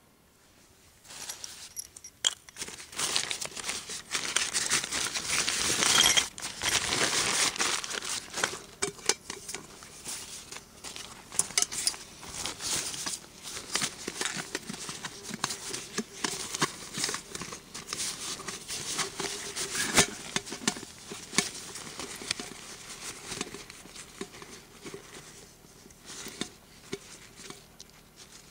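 Nylon stuff sacks rustling and crinkling, with light clicks and clinks from a camping cook pot being handled. It starts about a second in and is loudest in the first few seconds.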